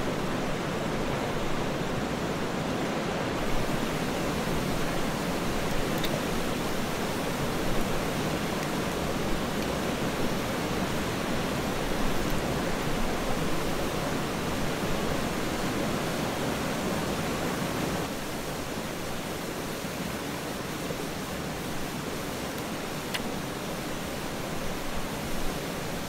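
Steady rush of a river flowing over rocks. It drops slightly in level about two-thirds of the way through.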